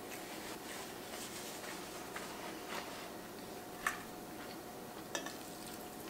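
Paper napkin rustling, then a metal fork and serving utensils clicking and scraping against a pot of pasta, the sharpest click about four seconds in and a couple more near the end.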